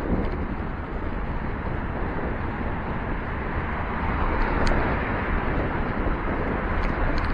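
Wind rushing over the microphone of a camera on a moving bicycle, with road noise. A car passes in the next lane, its tyres hissing on the wet road and swelling louder about halfway through.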